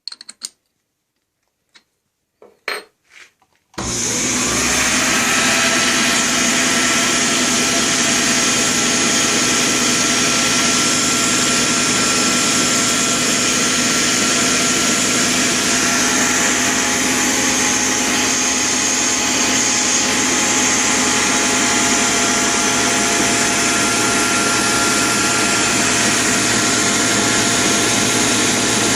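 A few light clicks, then about four seconds in a 1923 South Bend lathe starts and runs steadily in direct drive with its back gears and power feed disengaged. It is driven by a 2-horsepower permanent-magnet DC treadmill motor, which makes a steady whine over a loud running noise.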